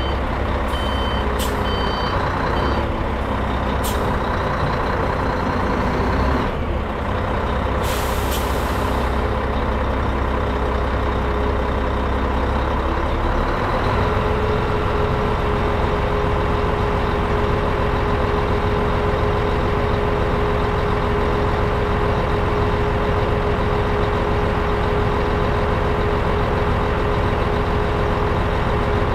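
Scania R420 truck's diesel engine running steadily as the truck reverses slowly, with the reverse alarm beeping for the first few seconds. There is a short hiss of air about eight seconds in, and the engine note changes a little past the halfway point.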